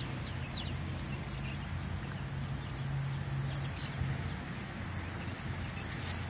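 Steady high-pitched insect chorus, with paired louder pulses about every two seconds, over a low steady hum. Faint short bird chirps come and go.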